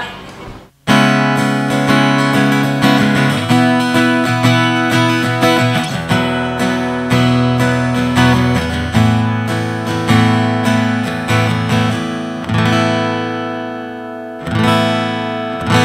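Cutaway acoustic-electric guitar strummed in chords, played through a Bullet AC15C acoustic guitar amplifier. It starts a little under a second in, the chords change every few seconds, and there is a brief break just before the last strum.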